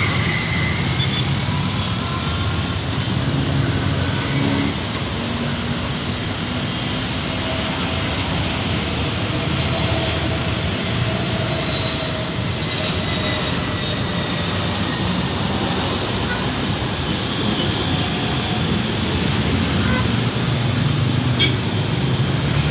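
Steady road traffic noise from passing vehicles, with a brief sharp noise about four and a half seconds in.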